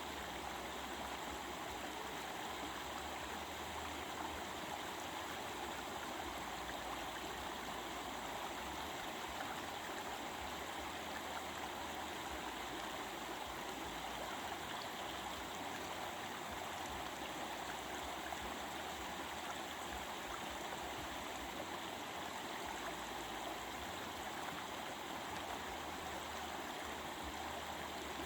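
Stream water flowing over rocks: a steady, unbroken babbling rush with no change in level.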